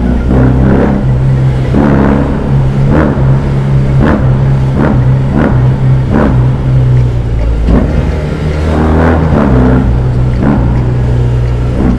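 BMW R18's 1.8-litre boxer twin running at a steady cruise, a deep continuous drone.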